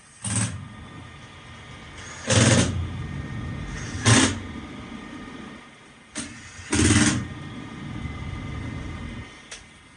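Gas furnace running with a low rumble, cut by four loud, short noises spread across a few seconds.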